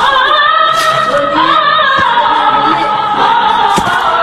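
Dramatic film-soundtrack music with long, wavering sung notes.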